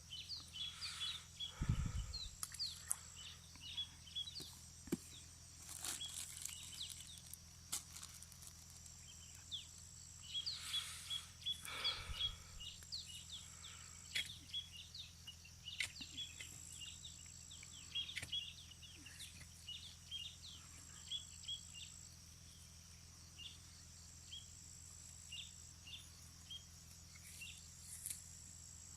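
Faint outdoor ambience: a steady high insect drone under many short bird chirps, with a couple of soft thumps about two seconds and twelve seconds in.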